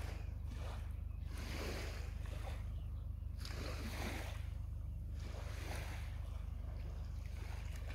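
Wind rumbling on the microphone, with small waves lapping on a sandy shore in soft washes about once a second.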